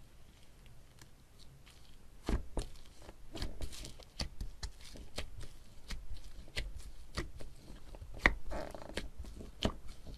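Slime being squeezed and pressed by hand, giving irregular sticky pops and clicks. It is sparse for about the first two seconds and then comes more often.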